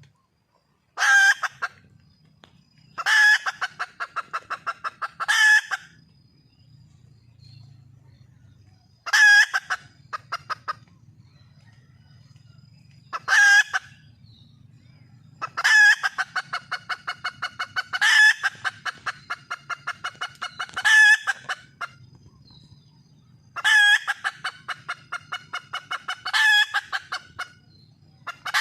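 Red junglefowl hen calling for a mate: a loud squawk followed by a quick run of clucks, repeated every two to three seconds.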